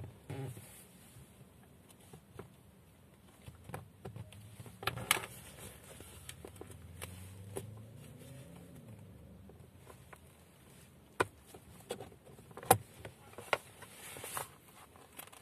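Plastic interior trim clicking and scraping as a pry tool works the gear-lever boot surround loose from the centre console, with several sharp snaps in the last few seconds as the retaining clips let go.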